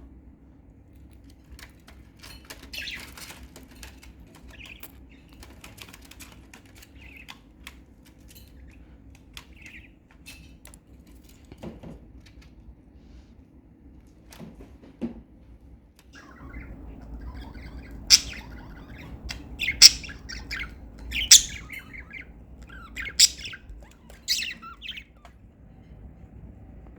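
Pet budgerigars chirping and squawking: scattered short chirps at first, then a run of louder, sharp calls in the second half, over a low rumble that starts about halfway through.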